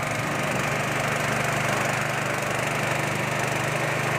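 Small Nishikawa stationary engine running steadily at constant speed, driving a peanut grinding mill.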